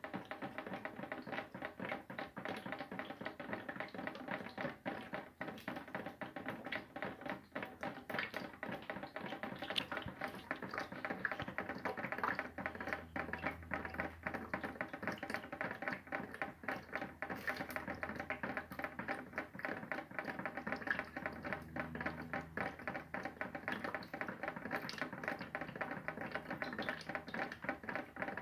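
Rapid, irregular tapping and pattering on a cluster of plastic and metal buckets, dozens of small hits a second, with a steady tone ringing underneath.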